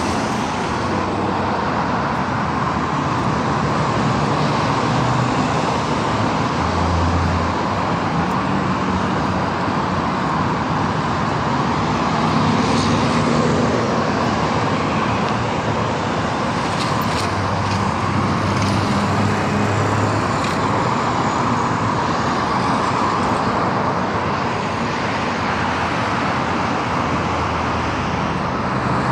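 Steady road traffic: cars and other vehicles driving past on a busy city boulevard, heard as a continuous wash of engine and road noise.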